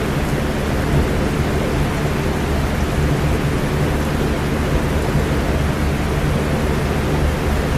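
Electric fan running together with steady rain: an even rain hiss over a steady low hum, unchanging throughout.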